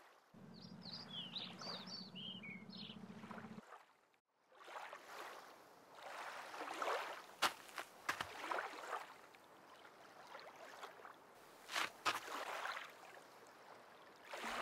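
A small motorcycle engine idles with a low, steady hum while birds chirp, and stops after about three and a half seconds. Then water laps and washes against a rocky shore in uneven swells, with a few sharp knocks.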